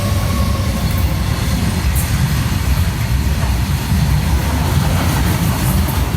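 Train passing close by: a loud, steady low rumble of the cars rolling on the rails. The last of its horn fades out in the first second.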